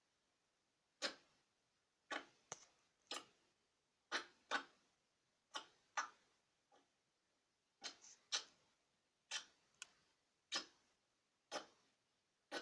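A television giving off faint, sharp clicks or cracks at an uneven pace, about one a second and sometimes two in quick succession.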